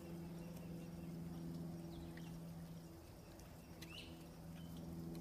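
Quiet room tone: a steady low hum, with a few faint light ticks scattered through it.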